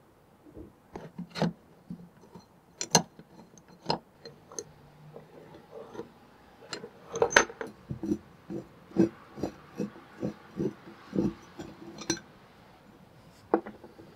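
Metal parts of an old cast-iron bench vise clinking and knocking against each other and against a wooden workbench as the vise is taken apart. In the second half the knocks come in a steadier run, about two a second.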